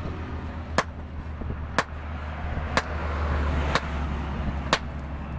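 Hammer blows on a red-hot leaf-spring steel cleaver blank held on an anvil: sharp metal-on-metal strikes, about one a second, five in all, over a steady low hum.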